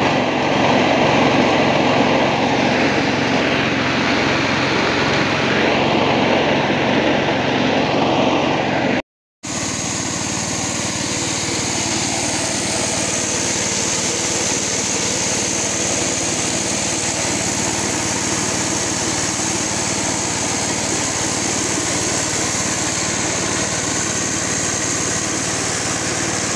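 Dry-coffee huller running steadily as it hulls dried coffee beans. The noise drops out for a moment about nine seconds in and comes back a little quieter.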